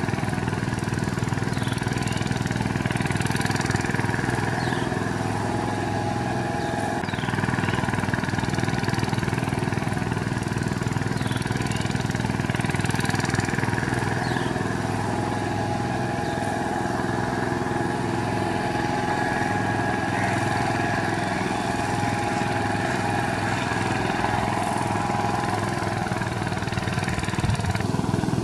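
VST Shakti 130 power tiller's single-cylinder direct-injection diesel engine running steadily under load as it drags a mud-leveling board through a flooded paddy.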